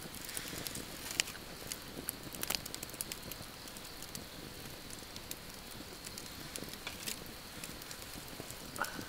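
Wood fire crackling, with scattered sharp pops from burning logs.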